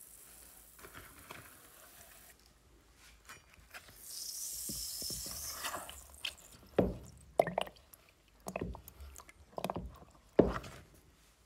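Steel hatchet head swished and dipped in a plastic tub of water, rinsing it: a few seconds of hissing, then a run of sharp sloshes and splashes in the second half, the loudest near the end.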